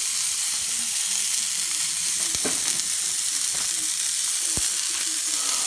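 A half-pound ball of ground beef sizzling steadily on a hot flat-top griddle, with a few faint ticks.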